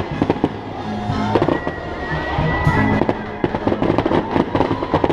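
Fireworks display: shells bursting in rapid, crackling bangs, many a second, thinning out in the middle and thick again near the end, with music playing underneath.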